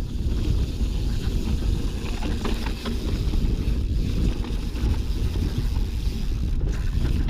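Heavy wind buffeting on the microphone of a camera riding on a mountain bike at speed down a dirt trail, with scattered clicks and rattles from the 2019 Fezzari Signal Peak as it rolls over the ground.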